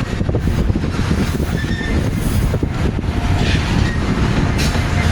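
Train rolling along the rails with a steady heavy rumble, with a few faint, brief high squeals.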